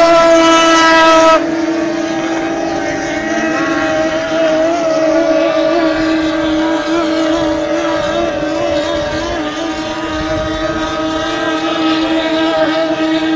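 Racing powerboat engine running flat out, a steady high-pitched whine. Loudest for the first second and a half, then it drops off sharply and carries on more distantly with a slightly wavering pitch.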